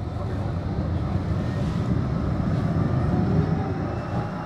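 A tram heard from inside the car as it runs along the line: a steady low rumble of wheels on rails, swelling slightly partway through, with a faint high whine above it.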